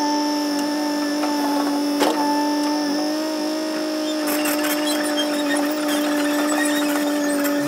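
L&T-Komatsu PC200 hydraulic excavator working, heard as a steady high-pitched whine. There is a single knock about two seconds in, and a rattling crackle joins from about four seconds in.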